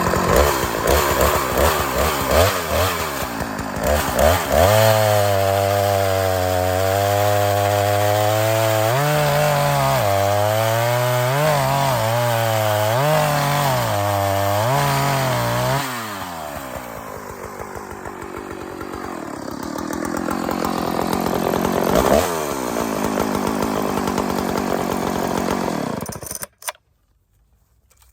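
Husqvarna 2100XP two-stroke chainsaw, running on a swapped-in Husqvarna 395 carburetor, at high revs with its pitch wavering and dipping as it cuts through a small piece of locust wood. After about 16 s it drops back and runs more quietly, revs up once near the end, and then cuts off abruptly when it is switched off. It runs well on the new carburetor.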